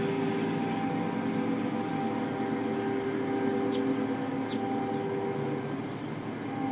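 Nathan K5HL five-chime locomotive horn blowing long blasts with short breaks as a Union Pacific freight approaches, over a steady rumble of train and street traffic.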